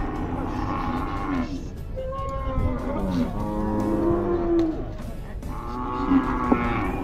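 Several cattle mooing, their long calls overlapping at different pitches, some sliding down in pitch at the end.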